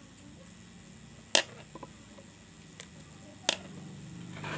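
Sharp clicks and knocks of a screwdriver and metal parts on a blender's drive gear as it is tightened. Two loud clicks come about two seconds apart, with a few fainter ticks between them.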